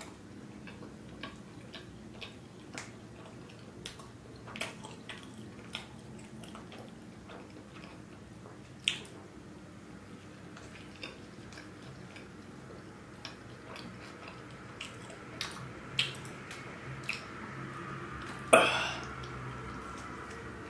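Close-miked eating of a soft tortilla wrap: scattered wet chewing and lip-smacking clicks, with one much louder mouth noise near the end.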